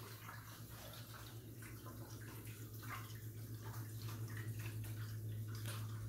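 Water falling from a glass water-wall fountain and splashing into its pebble-filled basin, a steady trickling splash that grows louder near the end, with a steady low hum beneath.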